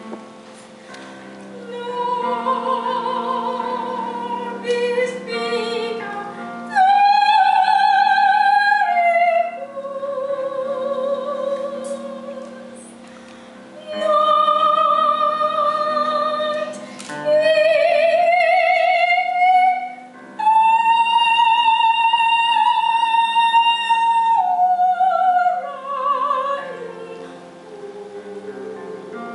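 A woman singing a slow song in a classical, operatic style, with long held high notes and wide vibrato, over a soft instrumental accompaniment.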